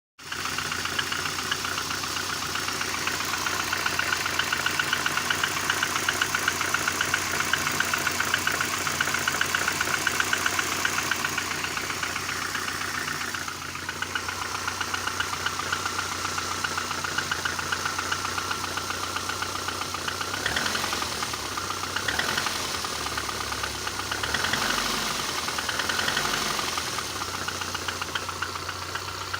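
Lada VAZ-2114's inline four-cylinder petrol engine running with a fast, even metallic knock at each turn, which the owner takes for piston knock in a worn engine at 305,000 km. In the second half the engine speed rises and falls a few times.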